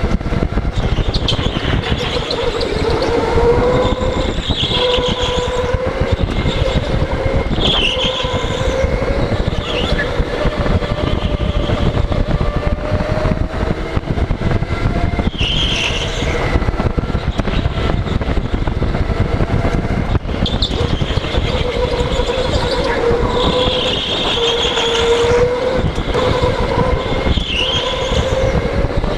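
Rental go-kart driven at speed around an indoor track, heard from the driver's helmet: a steady rumble of wind and tyre noise with the kart's motor tone rising and falling through the laps, and brief high squeals several times as it corners.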